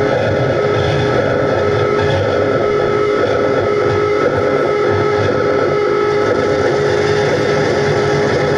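Experimental noise music: a loud, dense, unbroken wall of distorted noise with a held droning tone running through it.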